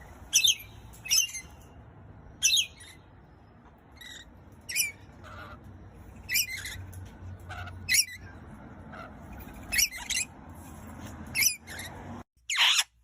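Pet parrot squawking in short, sharp, high calls, about ten of them spaced a second or two apart, over a steady low hum.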